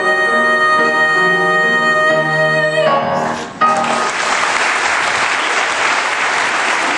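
A solo female singer's song ends on a long held note over its accompaniment, cutting off about three seconds in. An audience then breaks into loud, steady applause.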